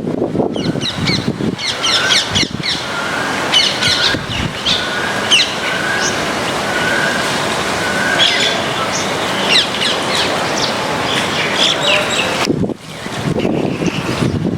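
Several small birds chirping and squawking over a steady hiss of rain, with one bird repeating a short call about every second for a few seconds.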